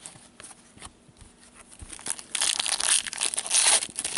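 A trading card pack wrapper being torn open and crinkled, starting loudly about two seconds in after a few faint clicks of cards being handled.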